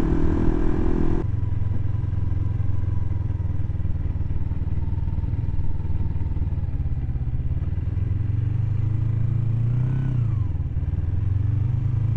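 Kawasaki Ninja 250's parallel-twin engine heard from the rider's seat while riding. The louder sound of riding at speed drops to a lower steady run about a second in as the throttle comes off, and near the end the revs briefly rise and fall as the bike slows.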